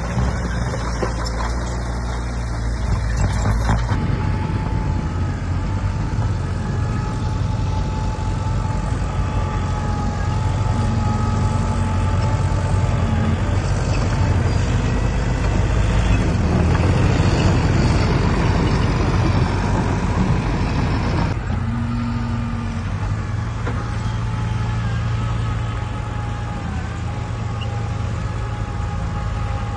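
Heavy diesel construction machinery running steadily under load, with a faint steady whine above the engine. The sound changes abruptly about four seconds in and again a little past twenty seconds.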